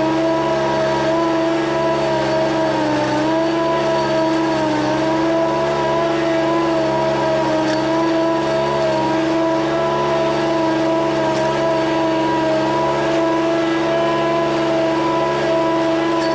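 Small petrol engine of lawn-care equipment running steadily at high speed, its pitch sagging briefly about three to five seconds in before recovering.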